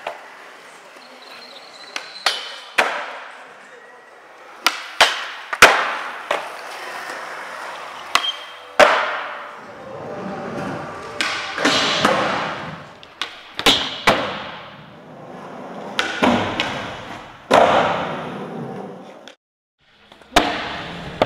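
Skateboard on concrete: wheels rolling between a series of sharp cracks and slams from tail pops and landings, each with a short ringing echo. The sound drops out briefly near the end.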